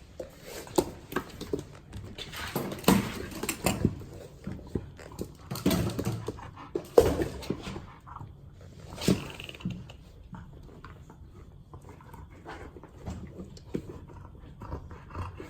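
Dogs growling and whining in irregular short bursts, loudest around three, six, seven and nine seconds in, then quieter.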